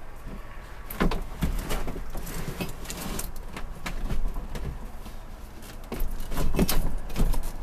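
Irregular knocks and clunks, loudest about a second in and again near the end, with a low rumble underneath: old wooden barn doors and their metal sliding hardware being handled and moved.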